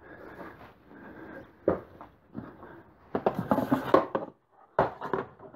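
Knocks, rattles and scrapes of a plastic battery box being picked up and handled on a workbench. The busiest clatter comes about three to four seconds in, followed by a short pause and a sharp knock near the end.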